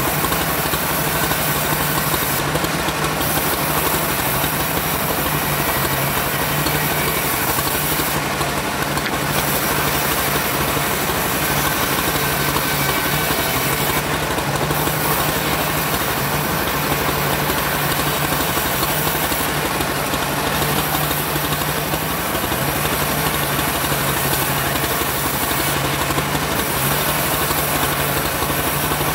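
Homemade bandsaw mill running steadily while sawing sengon wood, with a constant low hum under the noise of the blade. A brief high-pitched hiss swells up about every six seconds.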